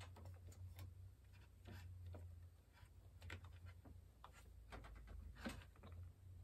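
Faint, scattered clicks and rustles of fingers pressing wire-harness connectors onto a treadmill console's display board, over a low steady hum.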